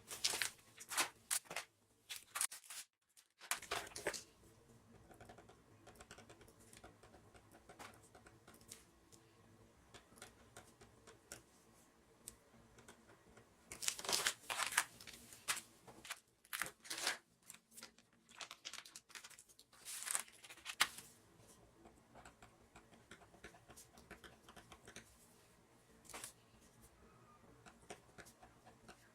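Plastic packaging and cling film being handled: crinkling and tearing in several short bouts, with quieter stretches between.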